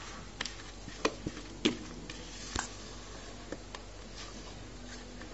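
Thin cake batter being emptied from a mixing bowl into a baking tray, with a few scattered light clicks and taps over a low background.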